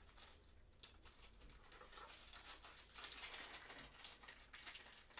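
Near silence: faint rustling and a few soft ticks of trading cards being handled.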